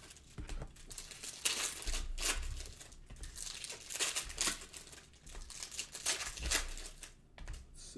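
Plastic trading-card pack wrappers crinkling in irregular bursts as they are handled.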